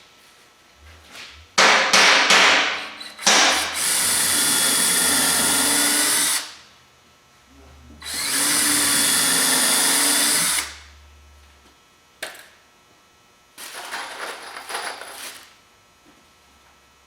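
Power drill running in two steady runs of about two and a half seconds each, with a steady motor whine, and shorter, rougher bursts of the tool before and after.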